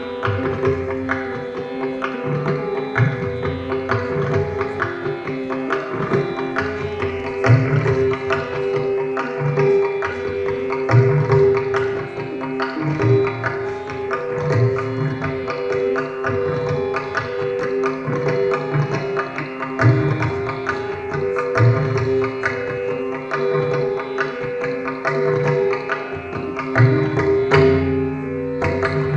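Tabla solo in teentaal, the sixteen-beat cycle: quick, dense strokes on the right-hand drum with deep, swelling bass strokes on the bayan, played over a repeating sustained melodic accompaniment that keeps the cycle.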